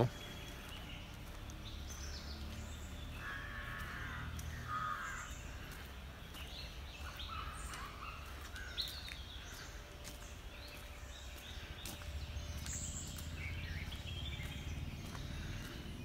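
Birds calling in the surrounding forest, with a crow cawing twice about three to five seconds in and scattered short chirps from smaller birds, over a low rumble.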